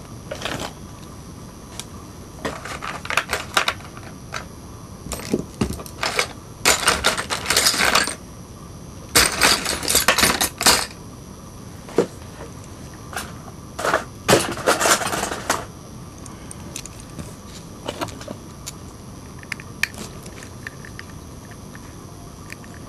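Bursts of light clicking and clattering as small hand tools (tweezers, a soldering iron) and a charger's circuit board and plastic housing are handled and set down on the table, with a few scattered single clicks later on.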